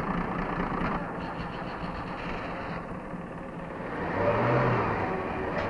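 Engine running on test while its ignition timing is checked. It runs steadily, then grows louder and revs up briefly about four seconds in.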